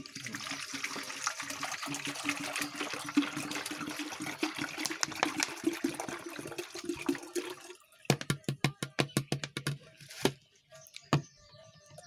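Medicated water being poured into a chicken drinker, a steady rush of liquid for about eight seconds before it stops. A quick run of sharp clicks or knocks follows.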